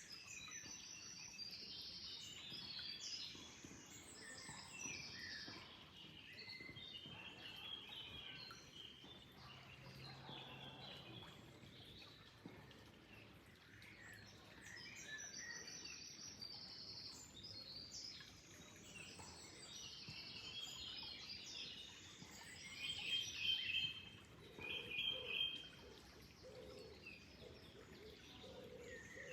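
Several songbirds singing and chirping, over a faint steady hiss of flowing water. A louder run of quick repeated notes comes about three quarters of the way through.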